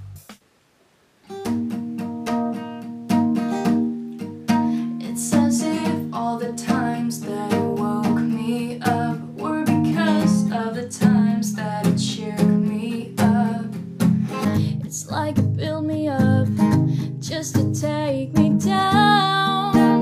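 Alvarez acoustic guitar strummed in a steady pattern of chords, starting about a second in after a brief hush, with a woman singing over it. It is heard first through a camera's built-in microphone and later through a Tascam iM2 stereo condenser mic.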